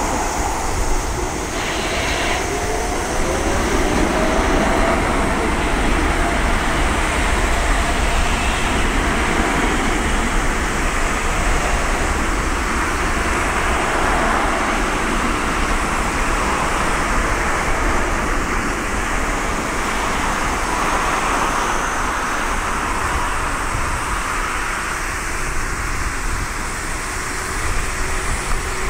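Jet airliner engine noise, a loud steady rush with a brief rising whine a couple of seconds in.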